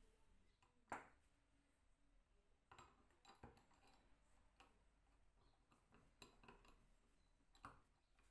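Faint, scattered clicks and light metal clinks from the steel parts of a Gedore pipe wrench, its hook jaw and frame, being handled and fitted back together. The sharpest click comes about a second in.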